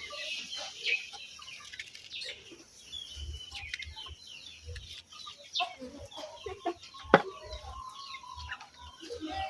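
Chickens clucking with many short, scattered calls, and one sharp knock about seven seconds in.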